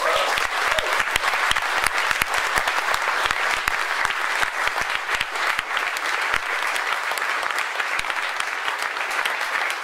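Audience applauding: many people clapping at once, starting suddenly and then holding steady.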